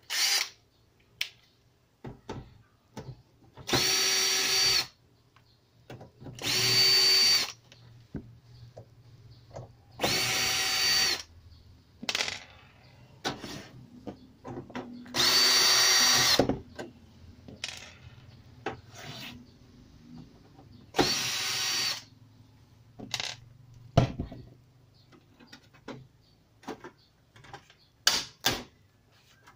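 Cordless drill-driver whirring in about six short runs of a second or so each, backing the screws out of an old mini hi-fi stereo's casing. Light clicks and knocks come between the runs.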